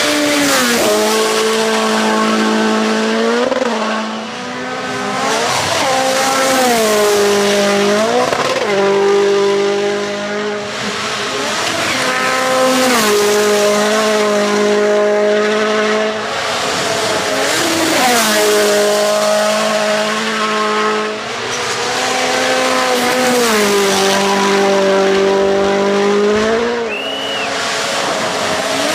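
WRC Rally1 rally cars' turbocharged four-cylinder engines at full throttle on gravel stages. The engine note climbs and drops sharply at each upshift or lift, with a hiss of gravel and dust thrown from the tyres. Several cars pass one after another.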